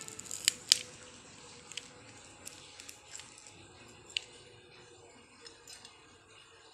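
Fingers handling guava pieces on a banana leaf: scattered small clicks and taps, with two sharp clicks about half a second in and another near four seconds.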